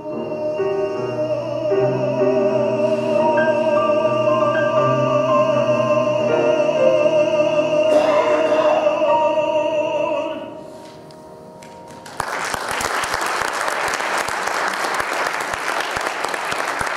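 A tenor voice holds a long note with vibrato over piano accompaniment, closing the song. The note ends about ten seconds in, and after a short hush the audience starts applauding.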